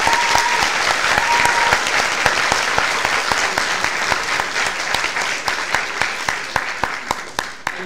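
Audience clapping, a dense patter of many hands that thins out and stops near the end. Two short beeps sound in the first two seconds.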